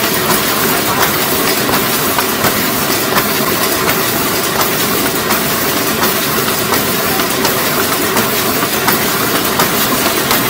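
BDF 1450 litho laminator running: a steady mechanical noise from its rollers and sheet conveyor, with a fast, uneven clicking.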